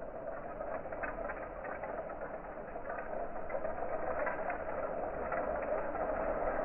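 Bamboo chopsticks rattling and clicking against one another in a dense, continuous crackle of many small clicks.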